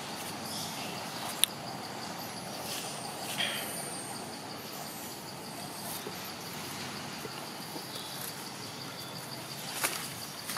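Outdoor ambience with an insect trilling steadily in a high, evenly pulsing note over a low background rumble. A single sharp click comes about a second and a half in.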